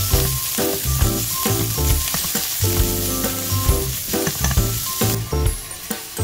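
Minced meat sizzling in hot oil in a nonstick wok, stirred and broken up with a silicone spatula, which gives short scraping taps against the pan.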